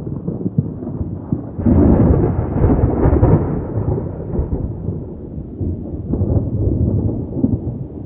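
Deep, crackling rumble that swells sharply about a second and a half in, then slowly dies away and fades out at the end.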